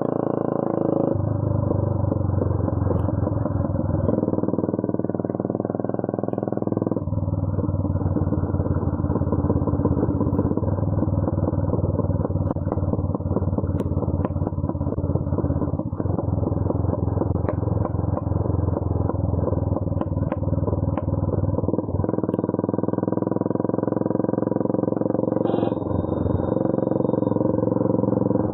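Bajaj Pulsar 220's single-cylinder engine running loud through a custom full-system exhaust with the catalytic converter removed and no dB killer, as the bike is ridden. The engine note shifts in steps several times, a few seconds apart.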